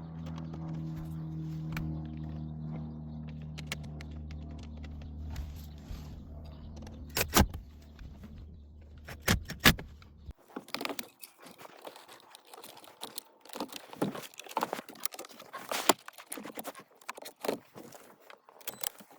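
A steady low hum with a few sharp clicks, which cuts off abruptly about ten seconds in. After that comes a run of irregular clicks, rattles and snaps: plastic interior trim covers being handled and clipped back into place around the gear shifter.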